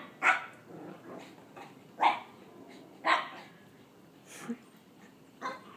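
Dogs play-fighting, with a dog barking: three sharp barks in the first three seconds, then a few quieter barks and yips.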